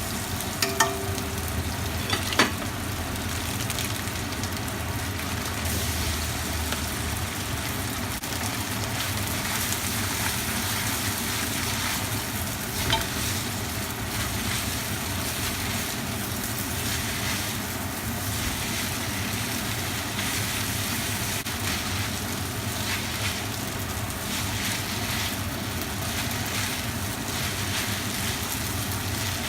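Food sizzling steadily while being stir-fried in a hot pan, with a few sharp clicks near the start and once about halfway.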